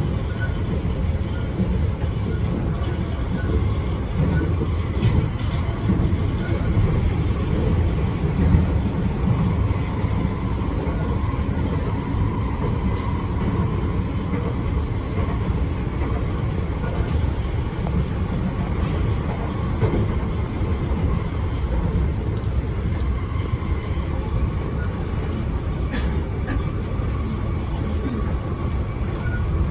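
Steady rumble inside a Kawasaki & CRRC Sifang C151C metro car running along the line between stations, with wheel and running noise heaviest at the low end and a faint steady whine around the middle.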